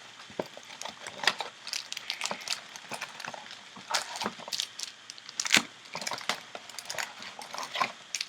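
Cardboard hobby box of trading cards being opened and its card packs taken out by hand: irregular crinkling, tearing and tapping, with the sharpest cracks about four and five and a half seconds in.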